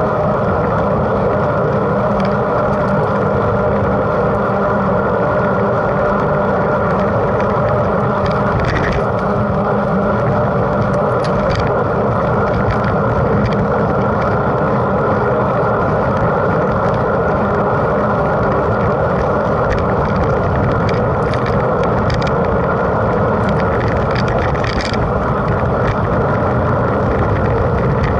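Mountain bike being ridden at race pace: a steady loud rush of wind and tyre rumble, with now and then a short click or rattle from the bike.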